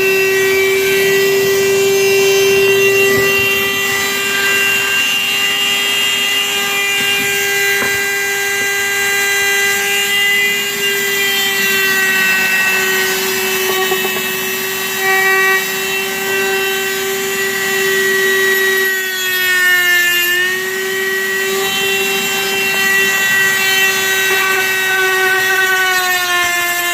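Dremel rotary tool with a cutting wheel running at high speed, a steady high whine, as it cuts into a sheet of plastic tote. Its pitch sags briefly about two-thirds of the way through as the wheel is loaded.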